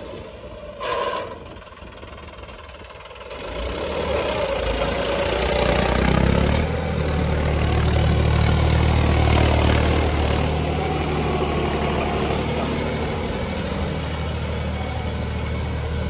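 Farm tractor's diesel engine running low at first, then revving up about three seconds in as the tractor pulls away, and holding a loud, steady drone.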